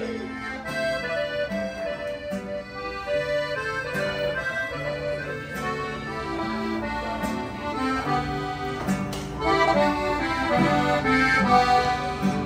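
Accordion playing an instrumental break in a ranchera: a moving melody of steady reedy notes over long held bass notes.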